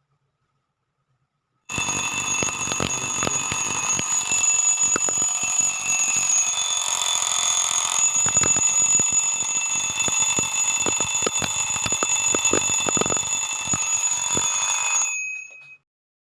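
Classic bell alarm clock ringing loudly and without a break, a shrill ring over rapid hammer clicks. It starts abruptly about two seconds in and stops about thirteen seconds later, dying away briefly as it stops.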